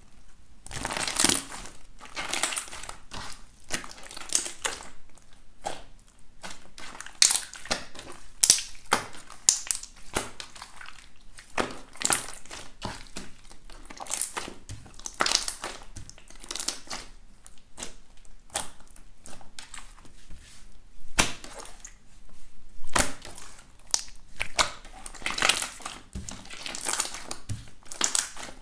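Hands squeezing and pressing clear slime, which gives a run of irregular crackles and pops.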